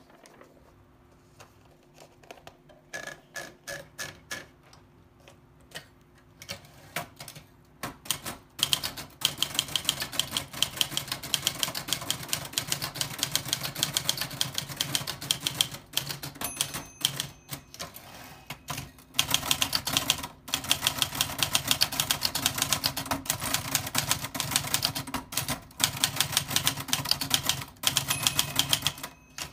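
Old typewriter being typed on: a few scattered key strikes at first, then from about eight seconds in a rapid, continuous clatter of keys broken by a few short pauses.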